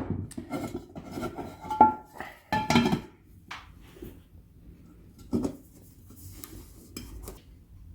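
Mild-steel armour pieces and tools handled on a workbench: a quick run of metallic clinks and clatter with short ringing notes in the first three seconds, then a few scattered knocks.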